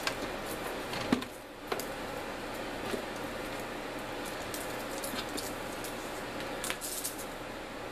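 Handling noises as electrical cords and a plastic condensate pump are moved about on a concrete floor: scattered light clicks and knocks, a sharp knock about a second in and a few more near the end, over a steady background noise.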